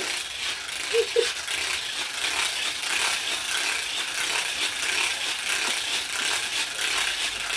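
Weighted, segmented plastic hula hoop spinning around the waist, its snap-together links rattling and clicking continuously.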